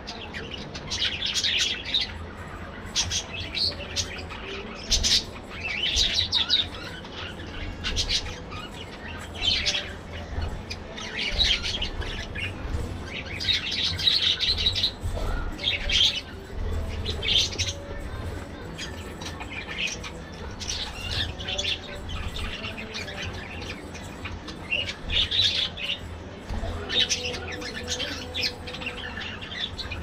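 A flock of budgerigars chirping and chattering, with short calls coming in quick, irregular bursts that overlap.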